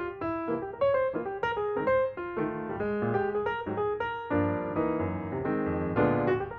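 Background piano music: single notes and chords played at a moderate pace, growing fuller about four seconds in.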